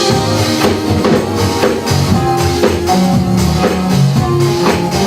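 Live church praise band playing a gospel song between sung lines, with a drum kit keeping a steady beat of about two strokes a second under bass notes.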